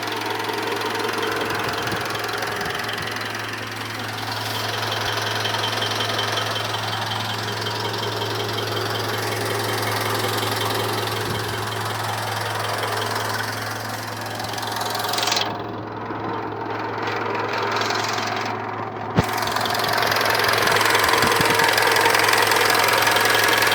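Mitsubishi 4D56 2.5-litre four-cylinder diesel of a 2013 Pajero Sport running warm, with a metallic knock from under the valve cover. The owner suspects the valve clearances need adjusting; a service shop called it normal. The sound is muffled for a few seconds in the middle and louder near the end.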